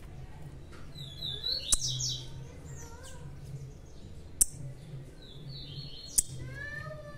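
Small birds chirping with short high notes, broken by three sharp clicks, with a longer, lower pitched call starting near the end.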